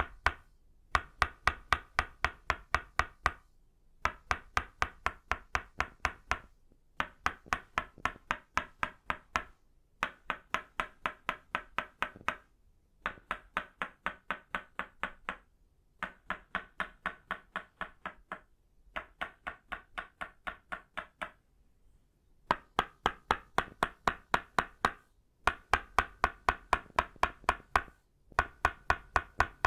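Tok sen wooden mallet of itauba wood striking a wooden peg, tapping in quick even runs of about ten knocks at roughly four a second, with short pauses between runs. The runs in the middle are softer.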